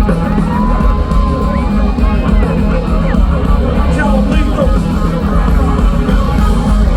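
Loud live rap-rock from a band through a festival PA, heavy in the bass, with a crowd yelling.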